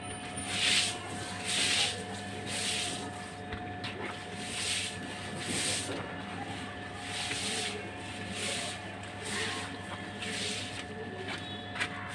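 Stiff stick broom sweeping a wet floor in regular strokes, about one swish a second, over a faint steady hum.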